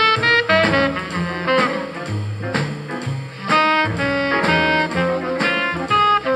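Instrumental jazz, a lead melody over a bass line stepping from note to note, played back through a pair of JBL D130 15-inch drivers running full range with no tweeter.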